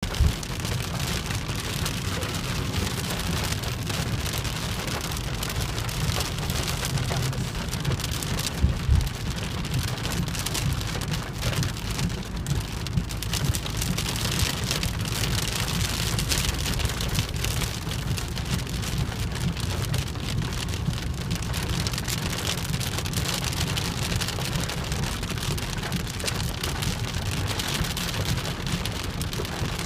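Steady rain falling, a dense patter of drops over a constant low rumble, with a couple of brief louder knocks near the start and about nine seconds in.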